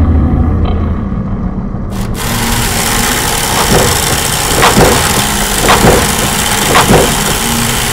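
Underwater noise-pollution soundscape: a steady low rumble, then from about two seconds in a loud rushing hiss with four swooping tones about a second apart.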